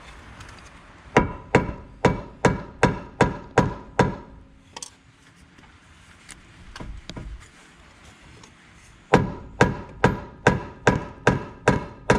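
Hammer blows on metal, ringing with each strike: a run of about eight quick, even blows, a pause of several seconds, then another run of about eight.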